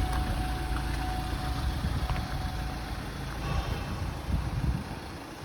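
Ford Transit TDCi four-cylinder diesel engine idling, heard from inside the cab. The hum weakens and turns uneven in the second half and drops off near the end.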